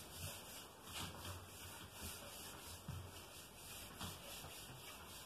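Whiteboard eraser wiped back and forth across a whiteboard: faint, repeated rubbing strokes as the marker writing is cleared.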